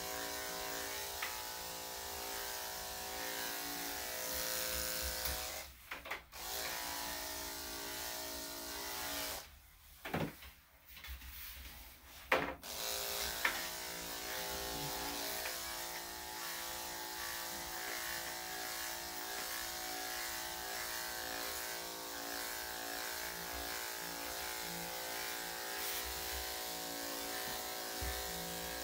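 Electric dog grooming clippers running with a steady hum as they are worked through a Yorkie cross's coat. They stop briefly about six seconds in, then again for about three seconds from around nine seconds, and start again with a click.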